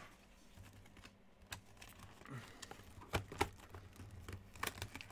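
Typing on a computer keyboard: a faint, irregular run of key clicks that gets busier in the second half.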